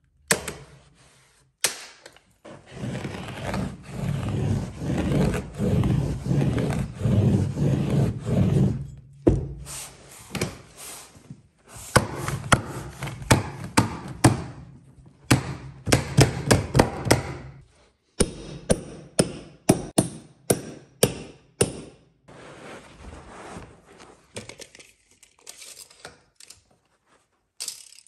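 Installing a carpet runner on wooden stairs: a few seconds of rough rubbing noise, then runs of sharp knocks and clicks, several a second, with short pauses between runs.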